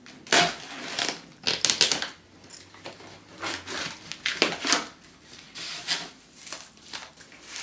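Packing tape on a cardboard box being slit with a knife, then the cardboard flaps pulled open: a series of short scraping, rustling noises.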